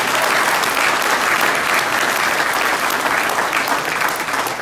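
Large audience applauding, dense and steady sustained clapping.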